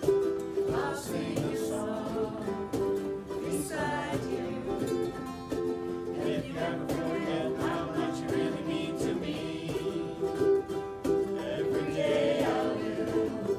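A small choir of men and women singing a pop song together, accompanied by several strummed ukuleles keeping a steady rhythm.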